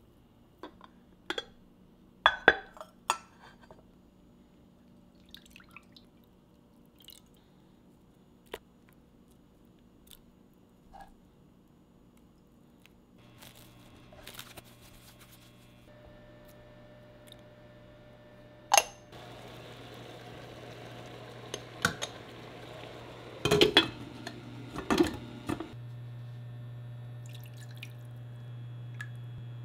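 Kitchen work: scattered clinks and knocks of dishes, glass and utensils. About a third of the way in, a steady low appliance hum comes on and gets louder in steps later on.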